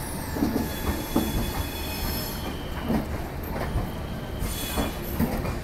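Brand-new LHB passenger coaches rolling slowly past on arrival: a steady wheel-on-rail rumble with irregular knocks as the wheels cross rail joints, and a thin high wheel squeal above it.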